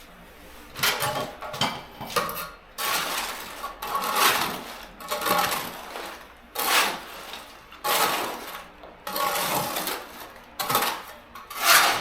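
Bricks and mortar rubble from an old brick oven scraping and clinking, in about a dozen uneven strokes, each under a second.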